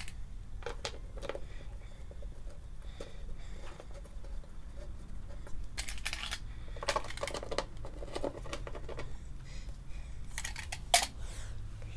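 Scattered light clicks and metallic clinks of small bolts and hand tools being handled and picked from a metal can, busiest past the middle with a sharper clink near the end. A steady low hum runs underneath.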